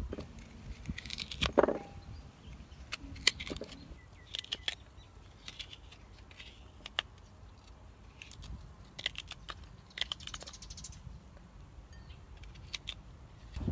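Sparse light clicks, taps and rustles of food preparation by hand with a small knife, at irregular intervals over a faint outdoor background.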